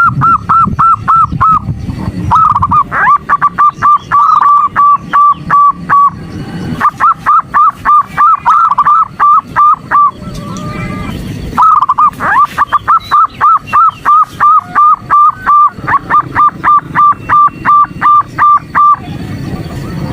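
Zebra dove (perkutut) calling: bouts of quick, evenly repeated short cooing notes, several a second, broken by short pauses. This is a female's call used to lure and excite male perkutut.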